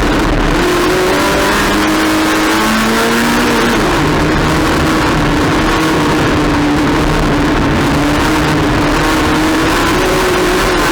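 Touring race car engine running hard under racing load, its pitch rising and falling with throttle and gear changes, over steady wind and road noise.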